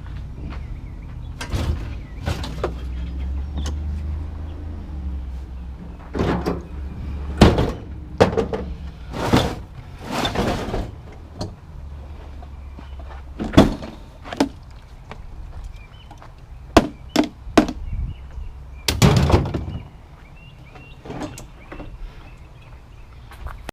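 A series of about a dozen loose bangs, knocks and clunks at irregular intervals, some ringing briefly, with a low engine rumble under the first few seconds.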